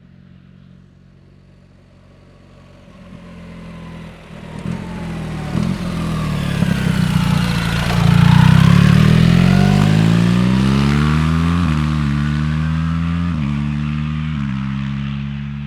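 BMW R 1300 GS Adventure's boxer twin running through an SC-Project rear silencer, accelerating. It grows louder to a peak about eight seconds in, then slowly fades, its note changing in steps several times near the end.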